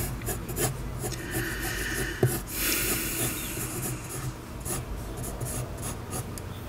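Pencil drawing on paper: a run of short strokes, with longer, continuous strokes from about one to four seconds in.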